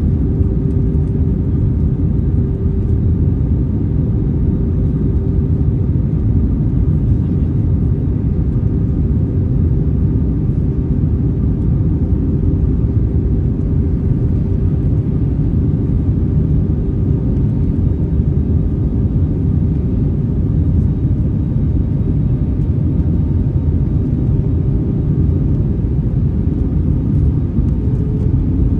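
Airbus A321 cabin noise in flight: a steady engine and airflow drone with a constant hum in it. The hum shifts slightly higher near the end.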